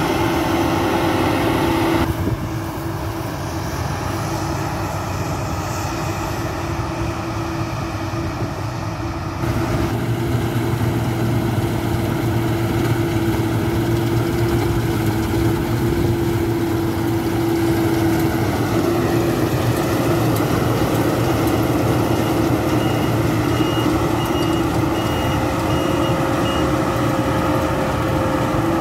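Claas Lexion 660 combine harvester running while harvesting: a steady engine and threshing drone with a constant hum, its sound changing abruptly twice, about two and nine seconds in. Past the middle a reversing alarm beeps evenly for about six seconds.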